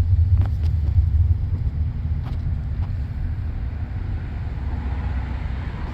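Wind buffeting the microphone: a deep, uneven rumble, strongest in the first second or so, with a few faint short clicks.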